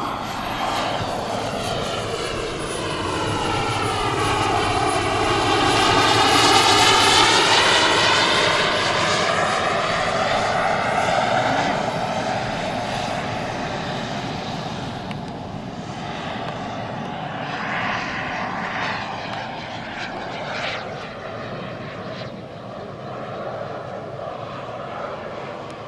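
JetCat P-220RXi model jet turbine of a large scale Fiat G91 flying past: a steady high-pitched turbine whine over a rushing jet roar. It swells to its loudest about seven seconds in, then slowly fades as the jet moves away.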